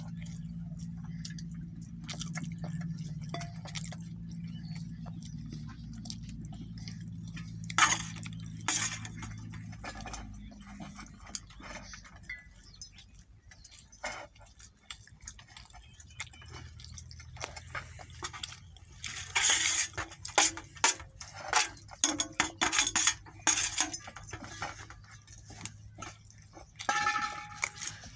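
Scattered clinks and knocks from a stainless steel food bowl and a plastic toy car being handled on the floor, coming thickest in a busy run about two-thirds of the way through. A low steady hum sits under the first third and then fades.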